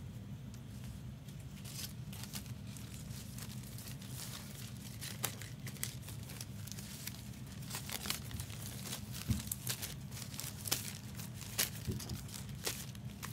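Empty trading-card pack wrappers crinkling and rustling as they are dug out of the trash and handled, in irregular crackles that come more often in the second half, over a steady low hum.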